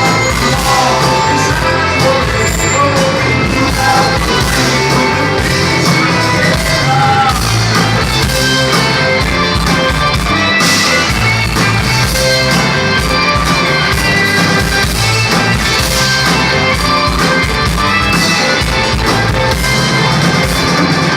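Live rock band playing loudly, with electric guitars, bass, drums and singing.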